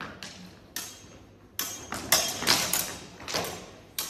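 A quick run of sharp knocks and clacks from sword sparring, swords striking one another and the fencers, the loudest about two seconds in. Each knock echoes in a large hall.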